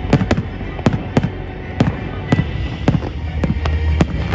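Fireworks display: aerial shells bursting in a dozen or so sharp bangs at irregular intervals, over a steady low rumble.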